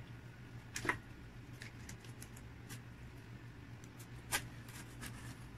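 Sparse light clicks and taps of a stainless steel adjustable ring cake mold being handled and loosened from around a cheesecake, with two sharper clicks about a second in and past the four-second mark, over a low steady hum.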